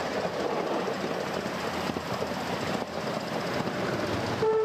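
Miniature railway carriages running along the track, wheels rattling and clattering steadily beneath a carriage-load of passengers. Near the end a locomotive horn toots.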